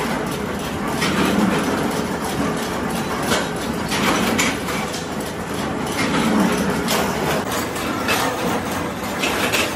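Workshop machinery running steadily under irregular metallic clanks and knocks of steel bar stock being shifted on a pile.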